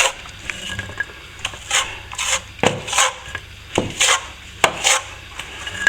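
Hand scraper scraping and chipping old plaster out along the wall–ceiling joint in a series of about nine short, rasping strokes.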